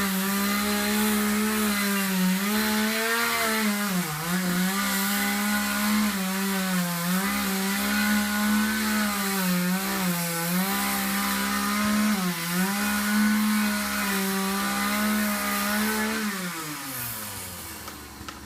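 Chainsaw running at high revs in a tree cut, its pitch sagging briefly several times. Near the end the throttle is released and the engine winds down.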